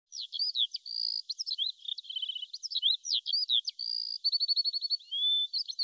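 Songbirds singing: a quick, continuous run of high whistled chirps, sweeping notes and short rapid trills.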